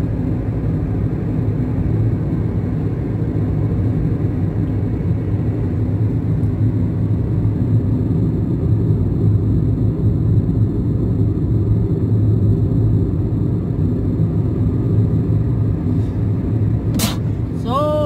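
Steady low road and engine rumble heard inside a moving car's cabin. Near the end there is a sharp click, followed by a short tone that slides down in pitch.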